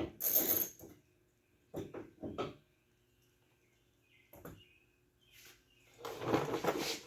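Socket ratchet clicking at a bolt inside a truck door for about a second, then a few scattered metallic clicks and knocks, and a louder stretch of rattling and scraping near the end as the door-handle parts are worked loose.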